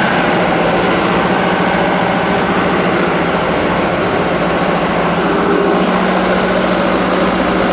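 Fire pump engine running steadily just after being started with its newly replaced starter motor. Its solenoid is faulty and does not work, so the engine has to be operated by hand.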